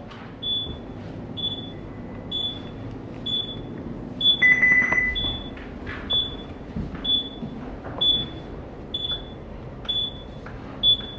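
Electronic alarm on a ship's bridge console beeping repeatedly: a short high beep about every 0.8 seconds, with one longer, lower beep about four and a half seconds in, over a low steady hum.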